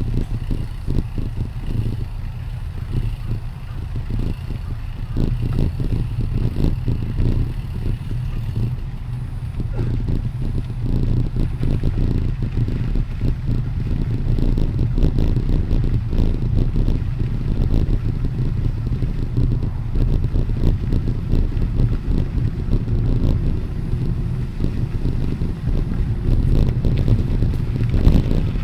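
Wind buffeting the microphone of a rider on a moving bicycle, a steady low rumble with irregular flapping, mixed with tyre rolling noise.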